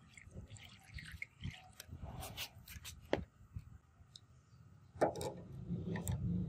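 The last of a liquid being poured into a long steel trough, then scattered clicks and knocks of the katana blade against the metal trough as it is laid in, the loudest about five seconds in. A low steady rumble sets in at the same time.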